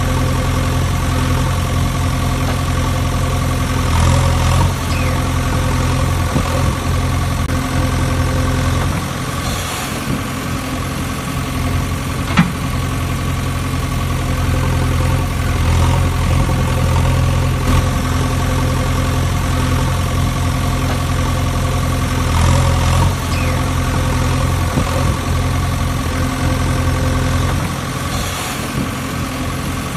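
A heavy-vehicle engine idling steadily, the engine sound of a backhoe loader, with one short click about twelve seconds in.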